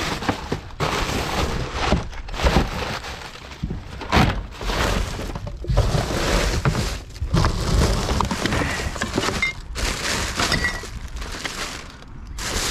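Glass bottles and cans clattering and clinking in an irregular run as a recycling bin is rummaged through.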